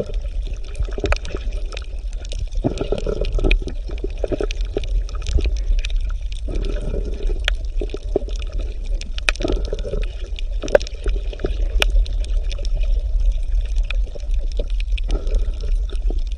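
Underwater sound: gurgling bubble bursts every few seconds over a steady low rumble, with scattered sharp clicks.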